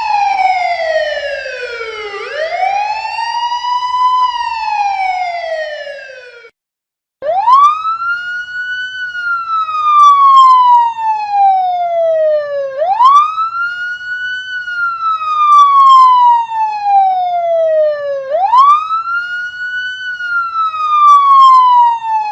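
Emergency vehicle sirens wailing. The first siren rises and falls about every four seconds and fades out about six seconds in. After a brief silence a second siren starts, each cycle a quick rise followed by a long slow fall, repeating about every five and a half seconds.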